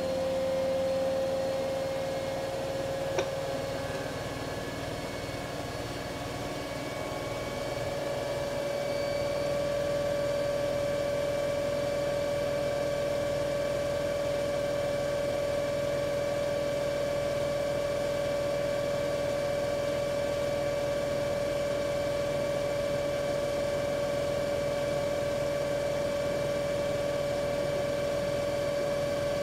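Siemens iQ500 washing machine (WM12T80TR) spinning up in its spin cycle: a steady motor whine that rises a little in pitch a few seconds in and then holds at speed. There is a single click about three seconds in. The spin is presented as that of a machine in good order, without the knocking of failed shock absorbers or the helicopter-like roar of worn bearings.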